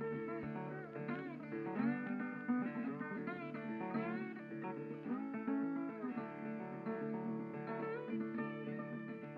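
Background music: acoustic guitar playing, plucked notes with some sliding pitches.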